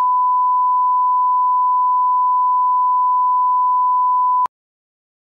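Steady 1 kHz reference test tone, the line-up tone that goes with colour bars. It cuts off abruptly with a click about four and a half seconds in.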